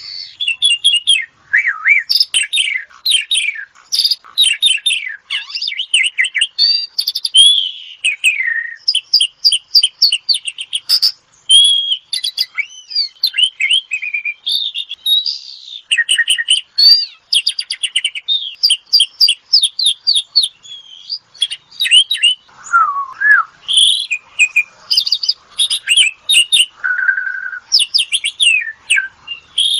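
Javan pied starling (jalak suren) in full, vigorous song: a continuous, varied run of rapid chattering trills, clicks and gliding whistles with hardly a break.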